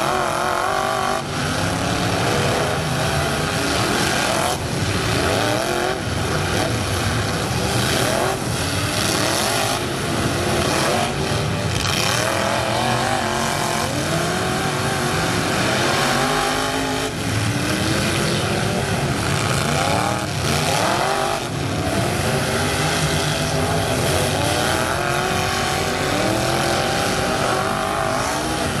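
Several demolition-derby pickup trucks' engines revving up and down over one another, with now and then a sharp bang as trucks collide.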